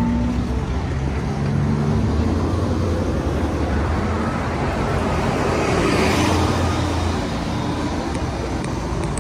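City street traffic: cars passing on a multi-lane road, with a steady low hum under the tyre noise. The traffic noise swells to its loudest about six seconds in as a vehicle goes by.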